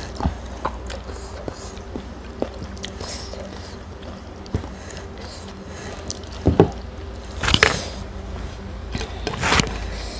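Mouth-close eating sounds: chewing, with fingers scraping and squishing spiced fish and rice on a plate. Small clicks throughout, and a few louder sharp noises from about the middle to near the end.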